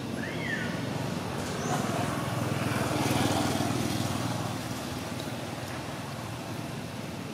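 A motor vehicle's engine rumbling, swelling to a peak about three seconds in and then fading as it passes. There is a short rising-and-falling chirp near the start.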